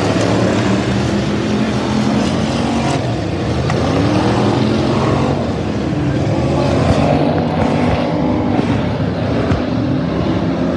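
Several figure-8 stock cars racing, their engines revving up and down and overlapping as they pass.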